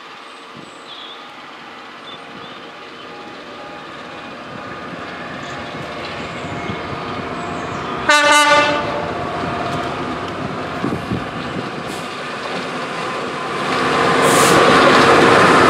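Class 66 diesel locomotive's two-stroke V12 engine running as it approaches hauling a container freight train, growing louder, with one short horn blast about eight seconds in. Near the end, a louder rumble as a Class 66-hauled container train runs close past.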